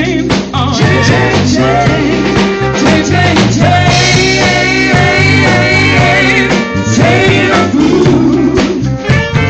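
Live band with trumpet, saxophone, keyboard and drums playing an upbeat tune over a steady beat.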